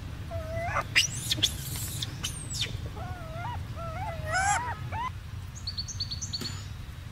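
A series of short, wavering animal calls, each bending up at its end, with a few sharp high squeaks and chirps between them, over a steady low hum.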